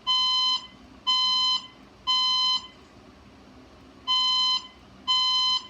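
Fire alarm voice-evacuation speaker sounding the temporal-three evacuation tone between spoken messages: three half-second beeps a second apart, a pause, then the next group of beeps begins.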